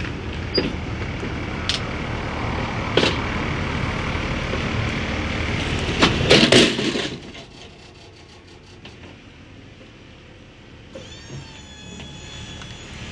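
Semi truck's diesel engine running steadily, with scattered knocks and clicks. A loud clatter of knocks comes about six seconds in, then the engine noise drops to a much quieter hum.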